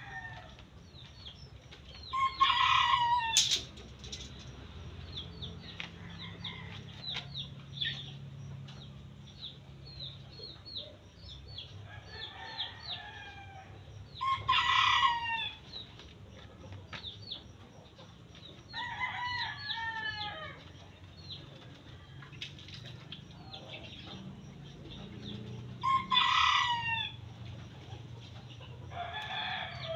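Roosters crowing: three loud crows about twelve seconds apart, with fainter crows from other roosters in between. Chickens cluck and call throughout.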